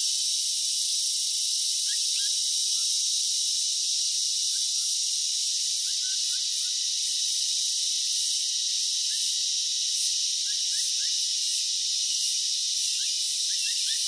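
Countryside ambience: a steady, dense chorus of insects with a high, shrill buzz. Over it come quick runs of short high chirps, most at the start and again near the end, with a few in the middle.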